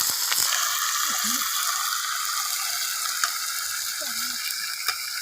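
Chicken frying with browned onions in hot ghee in a karahi: a loud, steady sizzle with a few sharp pops.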